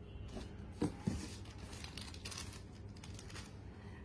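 Light rustling and crinkling as a plastic-wrapped gift item and paper are handled inside a cardboard box, with two brief, louder low sounds about a second in.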